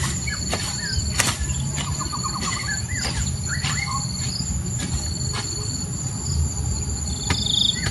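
Tropical forest ambience: insects keep up a steady high drone with a pulsing call that repeats about once a second, while birds chirp in short notes. A few sharp knocks sound now and then.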